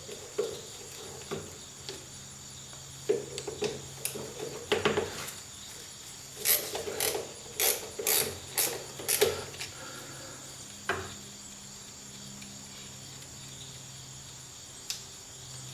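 Metal hand tools being handled: scattered sharp clicks and clinks, with a busier run of them about six to nine seconds in, over a faint steady hum.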